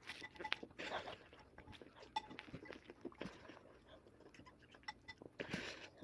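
Faint chewing of cereal, with light clicks of a plastic spoon against a ceramic bowl and breathy mouth sounds about a second in and again near the end.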